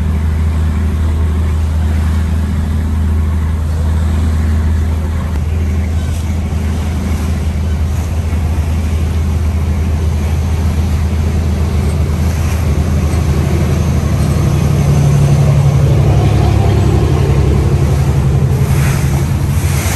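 An engine running with a steady low drone, which gets a little louder about three quarters of the way through.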